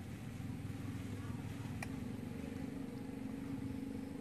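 A steady low rumble, with one faint click a little under two seconds in.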